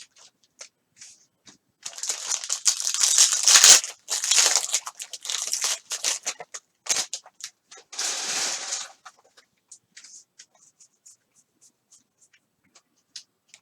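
A trading-card pack wrapper being torn open and crinkled by hand, in several bursts of crackling over a few seconds, then a few faint ticks.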